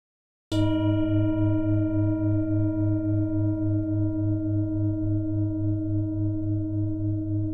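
A deep singing bowl struck once about half a second in, ringing on with several overtones and a slow, even wobble in its low tone, fading gradually.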